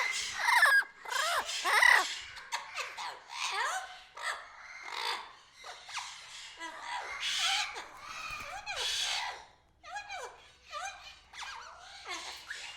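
Many aviary birds calling at once: overlapping chirps and whistled glides with harsh, screechy squawks. The loudest calls come about half a second and two seconds in.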